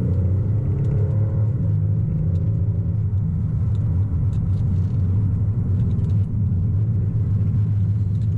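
Steady low rumble heard from inside the cabin of a 2015 Chevrolet Impala LTZ under way: its 3.6-litre V6 engine and road noise. A faint engine hum sits above the rumble for the first few seconds, then fades.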